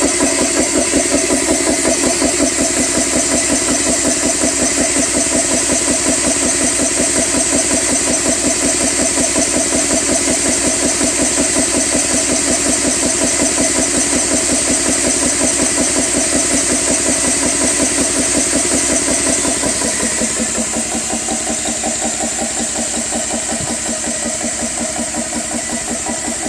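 GX CS3 high-pressure PCP air compressor running under load, pumping with an even rhythmic pulsing and a steady high hiss, as it fills an air rifle toward 3000 psi. It gets a little quieter about 20 seconds in.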